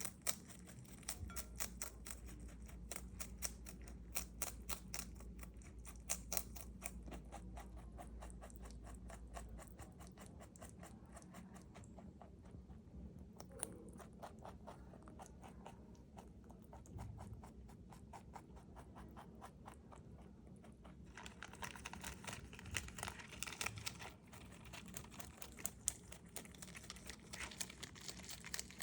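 A rabbit chewing crisp bok choy: a fast, steady run of small crunches. A denser rustling stretch comes about three-quarters of the way through.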